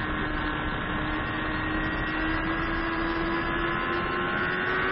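Sport bike engine running at sustained high revs through a corner, its pitch climbing slowly and evenly, with wind rushing over the onboard microphone.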